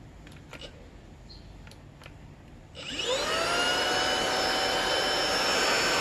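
Dibea D008Pro cordless handheld vacuum's brushless motor switched on about three seconds in: it spins up with a rising whine, then runs steadily with a high whine and rush of air. Before it starts there are only a few faint handling clicks.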